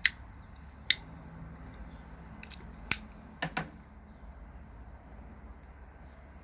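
Five sharp clicks or taps, the last two close together, over a low steady hum.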